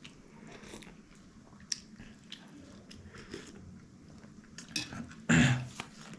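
Close-up eating: scattered small clicks and soft chewing sounds, with one much louder, noisy sound lasting about half a second a little over five seconds in.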